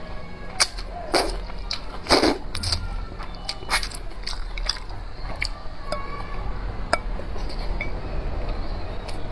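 A person slurping sweet potato glass noodles in hot-and-sour broth and chewing, with wet smacking clicks throughout and a loud slurp about two seconds in.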